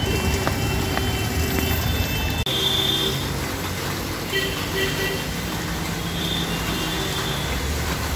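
Street traffic noise: a steady rumble of vehicles with a few short high tones over it, breaking off for an instant about two and a half seconds in.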